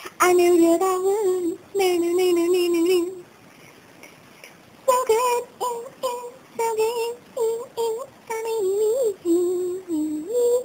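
A high voice singing a simple tune in short phrases of held notes, breaking off for about two seconds a few seconds in before carrying on.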